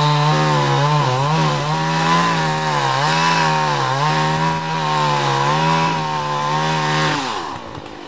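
Chainsaw running at high revs while cutting into a tree trunk, its pitch sagging and recovering several times as the chain loads up in the wood. About seven seconds in, the engine falls back and the sound drops away.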